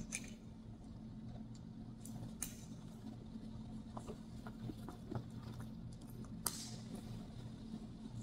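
Faint handling of a canvas shoulder bag: scattered small clicks and rustles, with a sharper click about two and a half seconds in and another about six and a half seconds in, over a steady low hum in the room.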